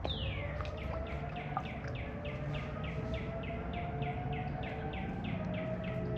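A bird calling a fast, even series of short downward-sliding notes, about four a second, over steady outdoor background noise.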